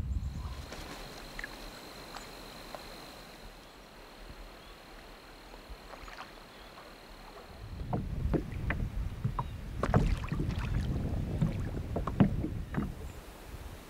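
Water splashing and sloshing from paddle strokes on a small paddled boat, starting about halfway through, with wind rumbling on the microphone. Before that, faint quiet ambience with a thin steady high tone.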